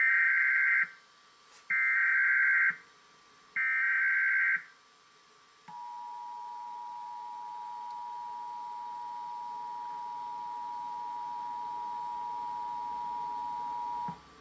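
Emergency Alert System required monthly test. It opens with three one-second bursts of screechy SAME data tones, the digital header, about a second apart. After a short pause comes the steady two-tone EAS attention signal, held for about eight and a half seconds and cutting off abruptly near the end.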